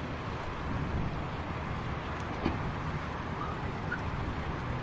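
City parking-lot ambience: a steady wash of car and traffic noise, with a single sharp knock about two and a half seconds in.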